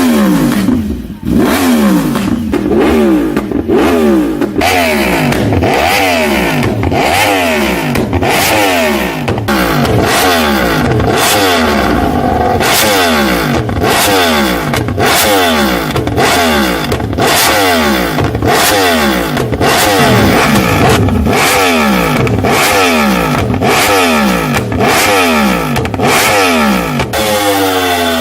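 Yamaha R1 crossplane inline-four motorcycle engine revving through its exhaust, the pitch sweeping up and dropping back roughly once a second, over and over.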